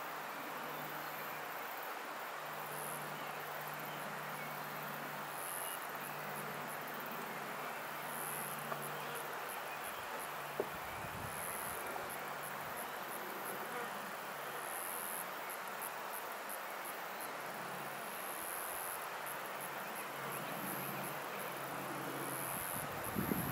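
An insect chirping in short, very high-pitched pulsed bursts that repeat every two to three seconds, over a steady outdoor background hiss with a low hum.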